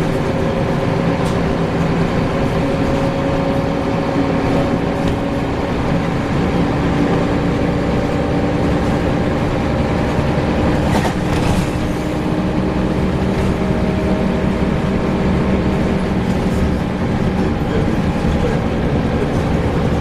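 Scania L94UB single-decker bus's diesel engine and drivetrain running under way, with steady tones that slowly rise and fall, and a brief rattle about eleven seconds in.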